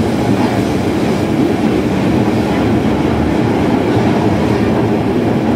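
Running noise of a JR Kyushu 305 series electric train heard inside motor car MoHa 305-104 on the underground subway section: a steady rumble of wheels on rail.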